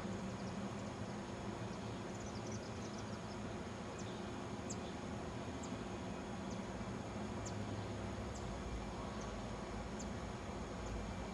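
Steady low hum of distant city traffic. Over it come high, short chirps: a quick flurry about two seconds in, then single chirps roughly once a second.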